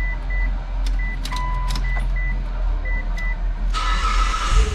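A car's warning chime beeping in short repeated beeps at one pitch over a steady low hum, with a few sharp clicks and a burst of hiss near the end. The key is in the ignition, but the engine does not crank.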